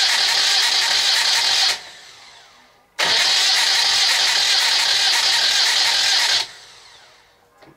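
Moto Guzzi V-twin engine being cranked on its electric starter in two long bursts. The first stops suddenly under two seconds in, and the second starts suddenly about three seconds in and runs for about three and a half seconds. Each burst cuts off and winds down.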